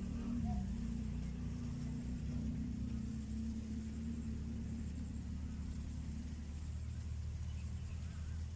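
A steady low rumble with a faint high-pitched whine held above it; the rumble thins a little about six and a half seconds in.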